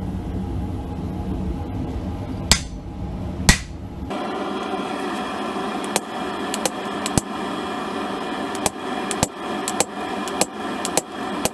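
Hand hammer striking a railroad spike on an anvil while it is forged: sharp ringing blows at an irregular pace, a couple early on and then a quicker run of strikes from about six seconds in. A steady low rumble lies under the first four seconds and cuts off abruptly.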